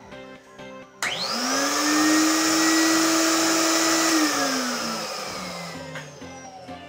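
B&G ULV fogger's Ametek Lamb blower motor switched on about a second in, spinning up with a rising whine, running steadily for about three seconds, then switched off and winding down with a falling whine: a brief test run of the newly fitted replacement motor.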